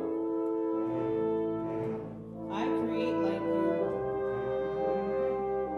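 Wind ensemble playing long held chords, the notes shifting every second or so, with a brief dip in loudness about two seconds in before the chords swell again.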